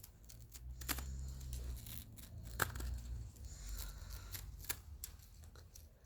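Toy slinky being played with in the hands, its coils clicking and rustling irregularly, with a few sharper clacks among them.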